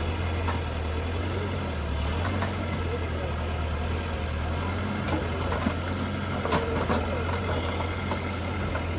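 Backhoe loader's diesel engine running steadily with a low hum, with a few short knocks from the work between about five and seven seconds in.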